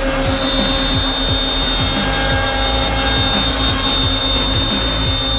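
CNC mortising machine cutting a mortise in timber. The spindle runs with a steady high whine, over a low rhythmic pulsing.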